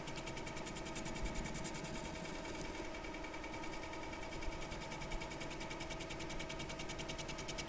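Mini lathe taking a facing cut across the cast epoxy face of an electromagnet: a steady motor whine under a fast, even ticking from the cutting tool. The ticking is the tool chattering because the surface is uneven.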